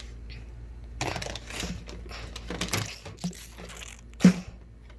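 Handling noises as a plastic basket and small toy figures are shifted and knocked about on a wooden table: a string of short knocks and scrapes, the loudest a sharp knock about four seconds in.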